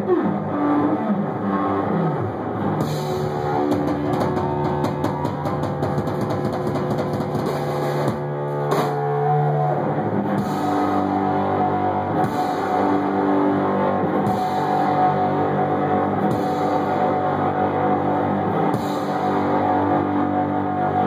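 Live punk-blues rock played loud on distorted electric guitar and drum kit, with no vocals. It opens with a falling pitch slide, and from about three seconds in cymbal crashes land roughly every two seconds over the held guitar notes.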